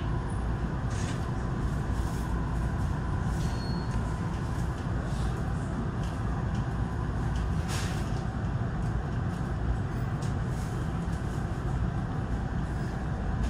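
Steady low rumble inside a JR commuter train as it pulls slowly away from the platform, with a few faint clicks.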